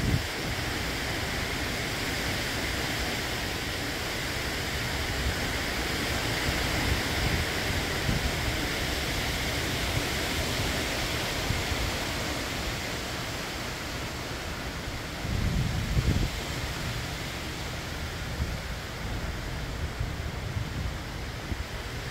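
Steady summer rain falling, an even hiss, with a brief low rumble about fifteen seconds in.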